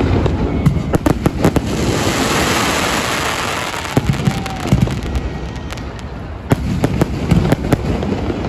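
Aerial firework shells bursting in quick succession: sharp bangs with crackling, and a stretch of dense hissing crackle a couple of seconds in.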